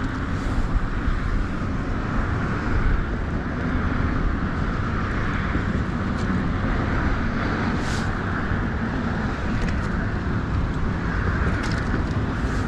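Steady wind rumbling on the microphone over open water, with a few light clicks near the end.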